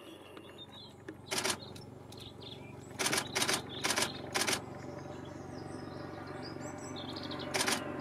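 Great spotted woodpecker pecking at a weathered wooden fence rail: short bursts of rapid taps, one about a second in, four in quick succession around three to four and a half seconds in, and another near the end.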